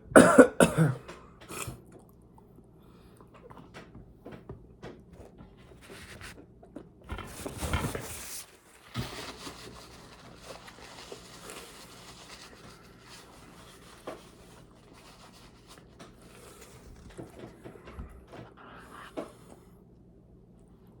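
Quiet eating sounds: a spoon scraping and clicking in a Blizzard ice-cream cup, with soft mouth sounds. A loud breathy burst opens, and a longer rustling burst comes about seven seconds in.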